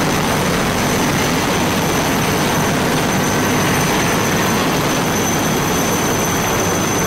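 Fighter jet engines running at high power: a loud, steady roar with a thin high whine over it.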